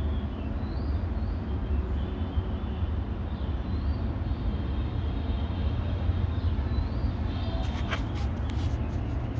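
Steady low outdoor background rumble, with faint bird chirps every second or two and a few sharp clicks near the end.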